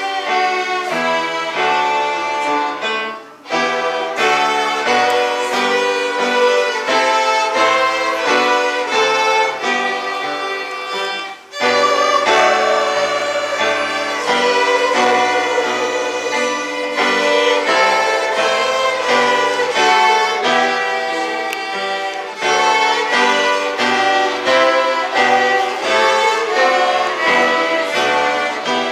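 Small group of violins playing a melody together in a steady flow of notes, with two brief breaks between phrases, about three seconds in and again about eleven seconds in.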